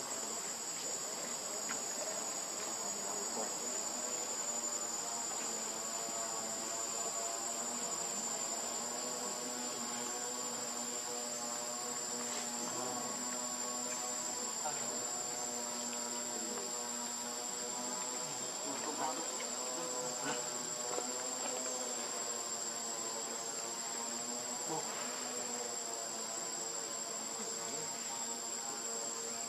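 Steady, high-pitched drone of a chorus of insects. A fainter, wavering hum sits lower down.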